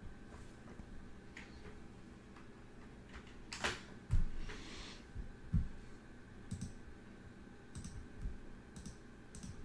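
Scattered clicks of a computer mouse and keyboard at a desk, a handful spread over several seconds, with a couple of low thuds about four and five and a half seconds in, over a faint steady hum.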